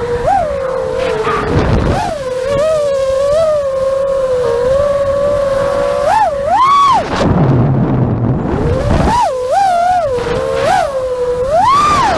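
Quadcopter drone's motors and propellers whining at a steady pitch, with several quick jumps in pitch as the motors speed up and settle. The whine drops out for about a second and a half past the middle, while a low rumble of wind buffeting comes in.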